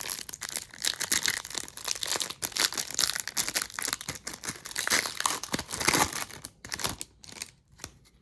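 Foil wrapper of a hockey card pack being torn open and crinkled by hand, a dense, irregular crackling that thins out near the end.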